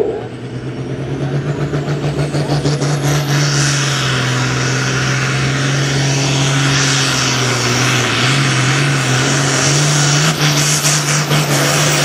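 International Harvester pulling tractor's diesel engine under hard throttle, its loudness building over the first few seconds and then holding steady and high as it drags the weight sled.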